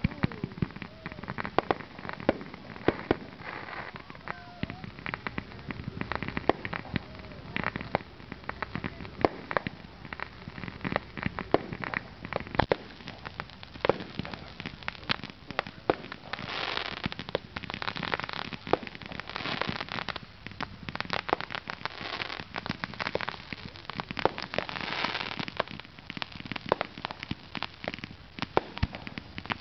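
Fireworks going off in quick succession: an irregular run of sharp bangs and pops from aerial shells and ground fountains, with stretches of dense crackling a little past halfway and again near the end.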